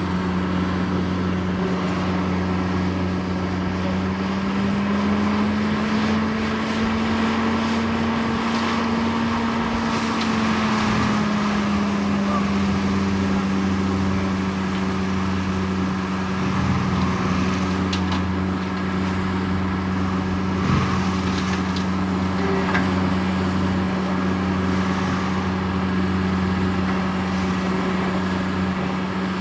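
John Deere skid steer with a forestry mulcher attachment running steadily, its pitch rising slightly about five seconds in and settling back about ten seconds in, with a few sharp ticks near the end.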